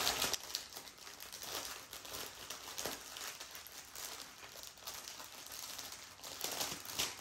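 Clear plastic packaging crinkling as hands handle and fold a bag of diamond-painting drill packets, in irregular rustles and small crackles.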